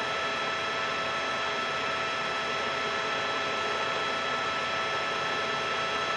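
Helicopter noise heard from on board: a steady mechanical drone with several constant whining tones over it, unchanging throughout.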